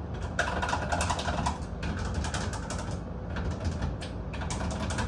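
A marker scratching on a door in quick, rapid strokes, marking out a lock's new position.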